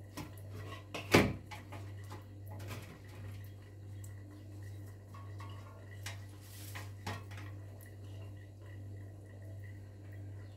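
Scattered sharp clinks and knocks, the loudest about a second in, over a steady low hum.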